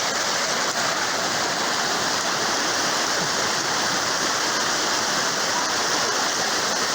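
Floodwater flowing, a steady even rush of water with no change in level.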